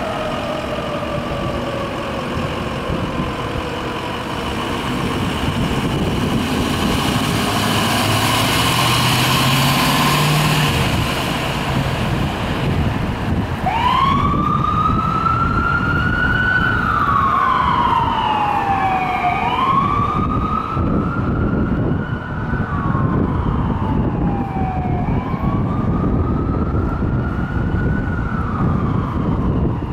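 An ambulance's electronic siren sounds a slow wail, rising and falling about every five to six seconds. It starts about halfway in over city traffic noise. Before it, a siren tone falls away at the start, and the ambulance's engine is heard pulling off.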